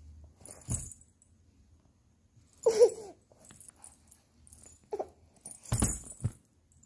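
A baby making short whimpering cries, a longer one about three seconds in and a brief one about five seconds in, between soft bumps and rustling from a plush toy being pressed against her.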